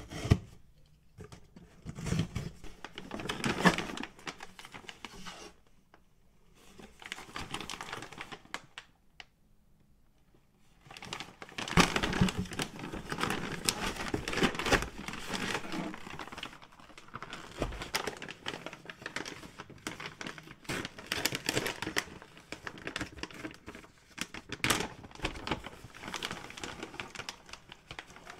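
A box cutter slicing the packing tape on a cardboard box and the flaps being pushed open, then plastic pouches of cashews crinkling and rustling as they are lifted out and opened. The sounds come in bursts, with short pauses.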